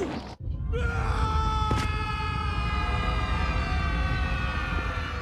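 A man's long held scream of falling, sinking slightly in pitch, over a loud low rumble that starts about half a second in.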